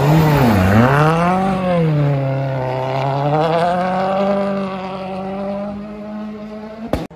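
M-Sport Ford Fiesta WRC rally car's turbocharged four-cylinder engine at full effort: its revs dip sharply about half a second in, climb again, then hold fairly steady as the car pulls away and fades. The sound cuts off abruptly near the end.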